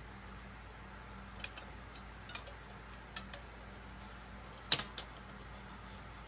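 Scattered light clicks and taps of small wooden model-kit parts being handled and pressed into place, with a sharper double click about three-quarters of the way through.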